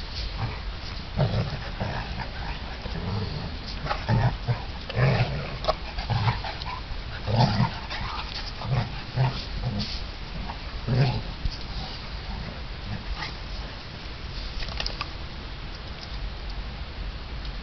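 A St. Bernard and a smaller hound play-fighting, with a string of short, low growls and grunts at irregular intervals that thin out in the last few seconds.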